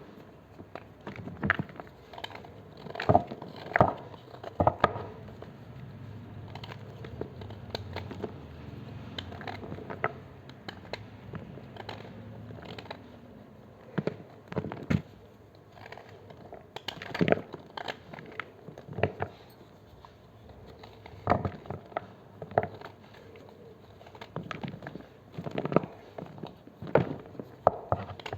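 Knife cutting and crushing blocks of gym chalk, close up: irregular sharp crunches, some in quick clusters, with quieter crumbling between them.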